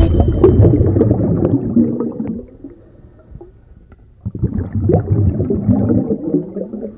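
Low underwater bubbling and gurgling in two bursts, the second starting about four seconds in.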